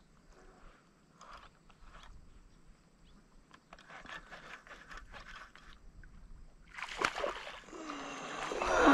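Faint small ticks, then from about seven seconds in water splashing and sloshing that grows louder toward the end: a hooked largemouth bass thrashing at the surface as it is reeled in close.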